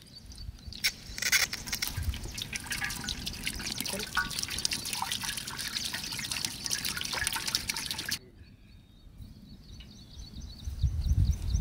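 Soybean oil poured in a trickling stream into a cooking pan for about seven and a half seconds, stopping abruptly. A low rumble of handling comes near the end.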